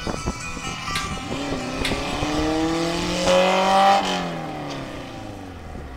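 Honda Civic EG6's four-cylinder engine revving hard on a slalom run, climbing in pitch to its loudest about three and a half seconds in. Then the pitch drops and the sound fades as the car goes past.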